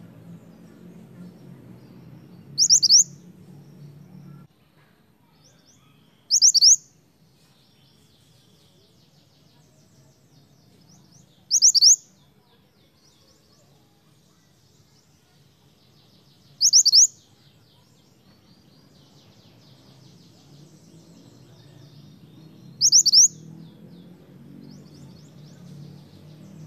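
Scarlet minivet (mantenan) calling five times, several seconds apart, each call a short, loud, high burst of two or three quick falling whistled notes. Faint high twittering runs underneath.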